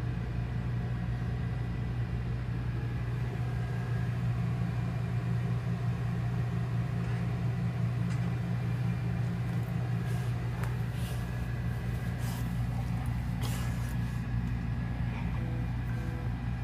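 A steady low machine hum with a few faint clicks about two-thirds of the way through.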